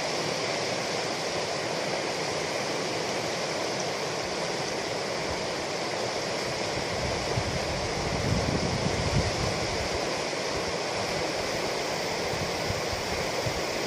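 River water rushing steadily over a riffle, with a brief low rumbling about eight seconds in.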